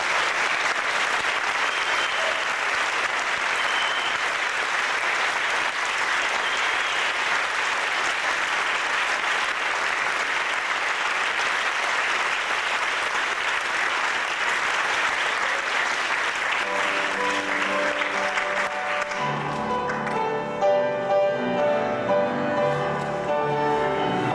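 Congregation applauding steadily for the newly presented bride and groom. The clapping dies away about nineteen seconds in as recessional music begins, with sustained pitched notes.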